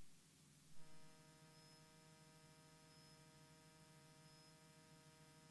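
Near silence, with a faint steady electrical hum and a brief faint tick about a second in.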